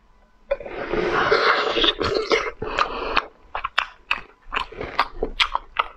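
A long wet slurp as braised snail meat is sucked out of its shell, followed by close-miked chewing with a run of sharp mouth clicks and lip smacks.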